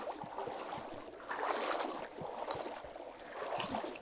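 A person wading through shin-deep muddy floodwater, the water sloshing and splashing around the legs in surges with each stride.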